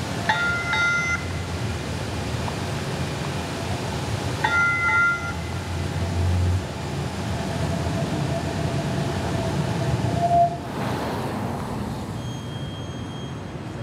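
Electric streetcar running past close by with a low rumble, its warning signal sounding in short tones twice near the start and again about four and a half seconds in. A steady whine from the car follows for a few seconds before it goes by with a swell of noise.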